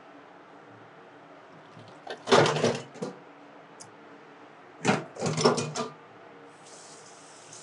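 Two loud bursts of kitchen clatter, each about a second long and about three seconds apart. A faint, steady high hiss comes in near the end.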